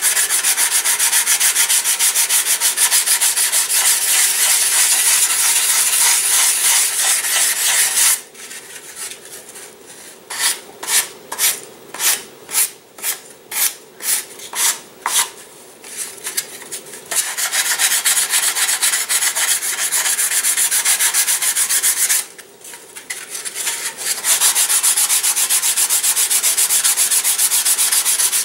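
Sandpaper on a hand sanding block rubbing a wooden model-glider fuselage in quick back-and-forth strokes. About a third of the way in, the strokes slow to separate single passes, about two a second. After a brief lull near the end, the fast sanding resumes.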